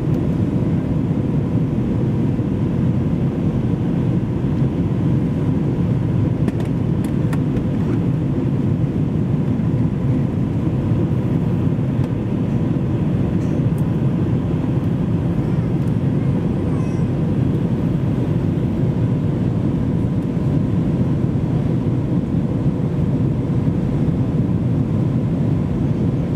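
Steady cabin noise of an Airbus A321-200 descending toward landing, heard from a window seat over the wing: a low, even roar of engines and airflow with a faint steady whine running through it.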